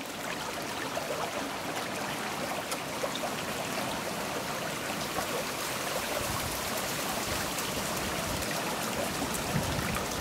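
Steady flowing water, like a trickling stream, with many small splashing ticks.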